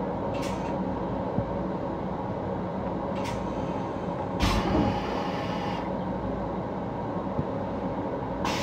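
Interior noise of a Long Island Rail Road M7 electric railcar heard from inside its restroom: a steady train rumble with a few short hisses. The loudest is about halfway through, a low thump followed by a hiss lasting over a second.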